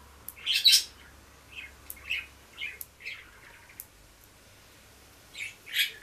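Budgerigar chirping in short, high calls: a louder pair about half a second in, scattered softer chirps after, and two more near the end, with a few faint clicks in between.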